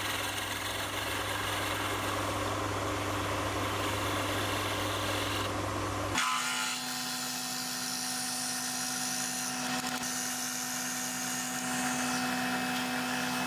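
Sieg C3 mini lathe running as a carbide insert tool faces off the end of a wooden handle. About six seconds in the sound switches to a different steady drone as a twist drill bores into the end of the handle.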